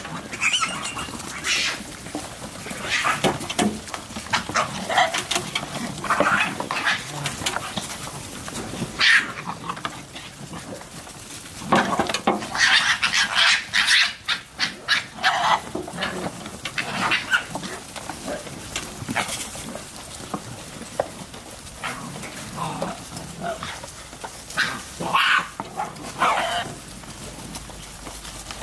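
A crowd of red foxes squabbling over food, giving short sharp cries and screams in irregular bursts, busiest about twelve to fourteen seconds in.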